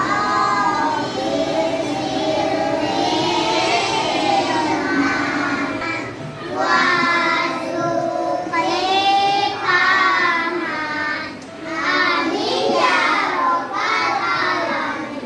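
A class of young children singing a song together in unison, phrase by phrase with brief pauses between phrases.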